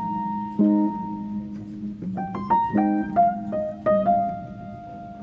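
Slow background piano music: chords and single melody notes struck at an unhurried, uneven pace, each left to ring.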